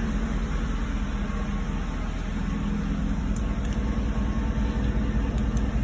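A vehicle engine running steadily: a low rumble with a faint steady hum.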